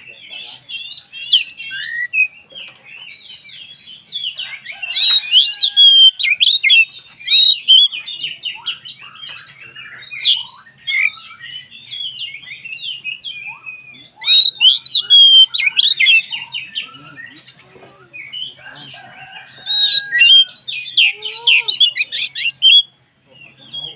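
Oriental magpie-robin (kacer) singing vigorously: a fast, varied stream of sharp whistles, slurred notes and chattering trills, swelling into loud bursts several times.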